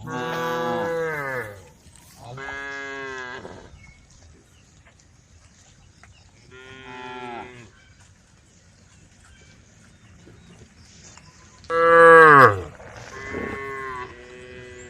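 Cows mooing to the herd in a series of about six separate calls, several of them falling in pitch, with the loudest about twelve seconds in.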